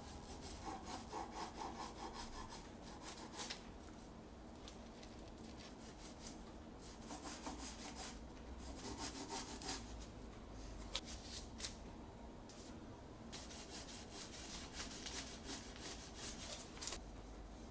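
Serrated bread knife sawing back and forth through the edge of a baked sponge cake sheet: a soft rasping scrape in several runs of quick strokes with short pauses between, and a couple of sharp ticks near the middle.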